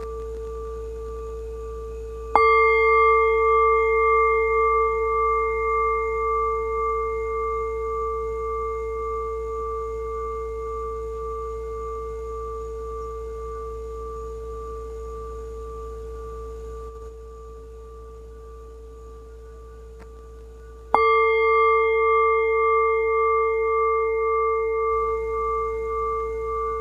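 A bell, already ringing from an earlier strike, is struck again about two seconds in and again about 21 seconds in. Each strike rings out long, a mid-pitched tone that pulses gently as it slowly fades.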